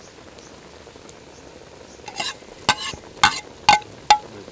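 A metal ladle clinking against a large metal cooking pot about five times in the second half, each clink ringing briefly, over the steady hiss of the soup boiling on a wood fire.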